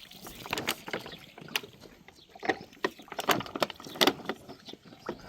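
Water splashing irregularly: a string of sharp splashes and knocks, about eight of them, a few louder ones near the middle and end.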